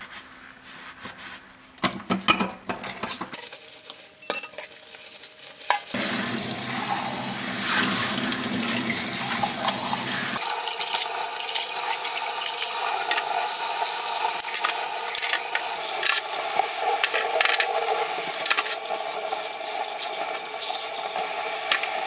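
Washing up at a stainless steel kitchen sink: a few knocks and clatters of utensils being scrubbed, then about six seconds in the tap comes on and runs steadily, water splashing over the dishes being rinsed under it, with small clinks of the utensils.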